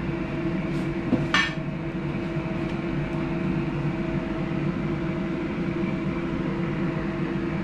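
Steady hum of a running appliance motor, with one light tap about a second and a half in.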